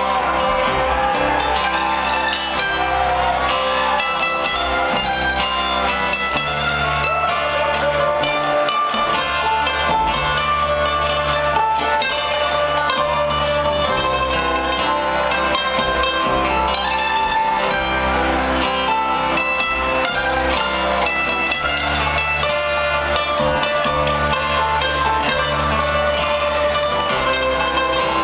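Bluegrass string band playing an instrumental passage live: mandolin, acoustic guitar, banjo and upright bass picking together over a steady bass line.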